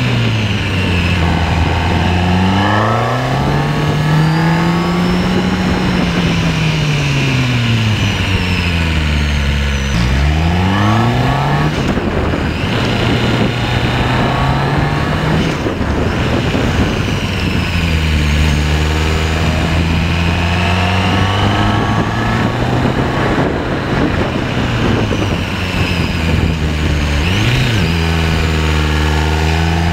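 Motorcycle engine heard from an onboard camera, its pitch rising and falling as it accelerates and slows through bends, with a short sharp blip near the end. Wind rush runs underneath.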